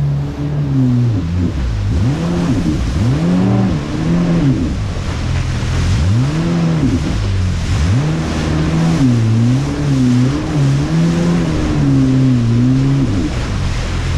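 Jet ski engine running at speed, its pitch repeatedly rising and falling every second or two, over a steady rushing hiss of wind and spray.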